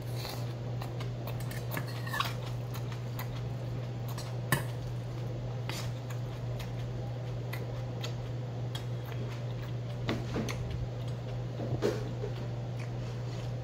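Metal spoon scraping and clinking against a stainless steel bowl while bibimbap is mixed and eaten, with scattered sharp clinks, the loudest about four and a half seconds in. Near the end a small steel bowl clatters as it is moved. A steady low hum runs underneath.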